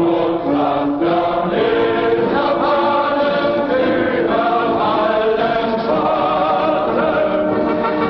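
Choral music: a choir singing held, slowly changing chords.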